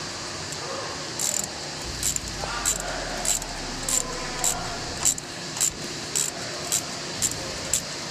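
Combination wrench turning a brake caliper bolt loose: a regular run of short metallic clicks, about two a second, getting slightly quicker.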